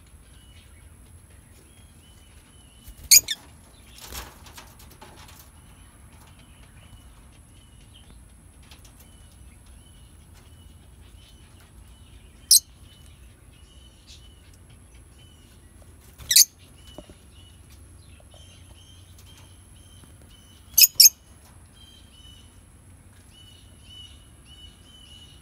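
Peach-faced lovebirds in an aviary giving short, shrill calls every few seconds, with two in quick succession near the end, over a faint steady twittering. There is a brief flutter of wings about a second after the first call.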